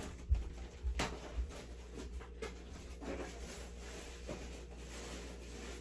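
A few low thuds of footsteps on the floor in the first second and a half, with a single click about a second in, then quiet room tone.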